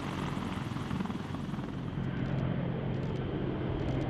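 CH-53K King Stallion heavy-lift helicopter running steadily, its seven-blade main rotor and turbine engines making a constant noise over a low steady hum. The sound loses its upper range about halfway through.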